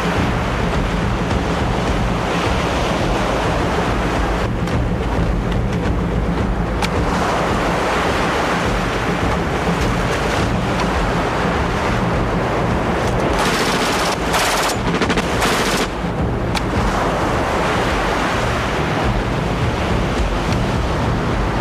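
Surf breaking on a sandy beach: a steady rush of waves and wind over a low, steady hum. A few short, sharp bursts of noise come about two-thirds of the way through.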